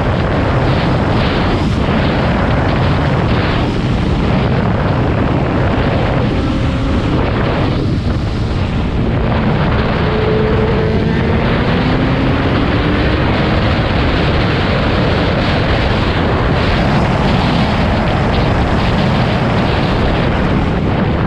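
Honda CBR500R sport bike riding at speed, heard mostly as a heavy, steady rush of wind on the helmet camera with the engine running underneath. Around the middle the engine note rises briefly.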